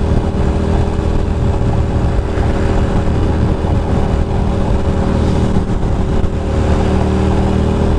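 Ducati Monster 620's air-cooled L-twin engine running at steady revs while the motorcycle cruises, with a constant rush of wind and road noise.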